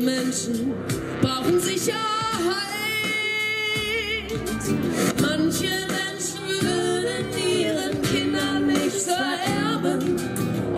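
Two women singing a song together into microphones, with instrumental backing music.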